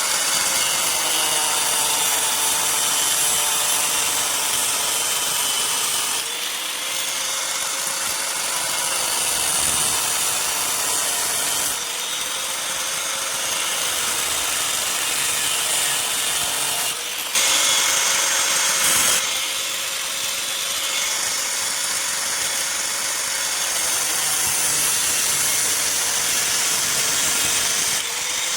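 Electric grinder running steadily and grinding steel, with a constant motor hum under a harsh hiss. The hiss changes as the work is pressed on and shifted, and is louder and harsher for a couple of seconds past the middle.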